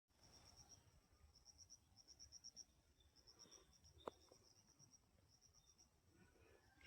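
Faint insect chirping: short high-pitched trills of a few quick pulses, repeated again and again. A single sharp click about four seconds in.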